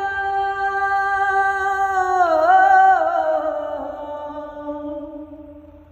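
A solo unaccompanied voice holds a long sung note at the end of a song line. It wavers up and down about halfway through, then fades away near the end.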